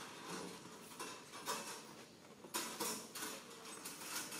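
Macaques' hands and feet scuffing and clicking on clay roof tiles in irregular light bursts, the clearest about a second and a half in and again around two and a half to three seconds in.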